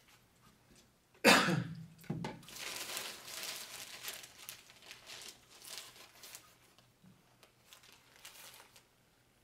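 A single loud cough about a second in, followed by a plastic bag crinkling and rustling for several seconds as it is handled and dry fiber is tipped from it, fading out near the end.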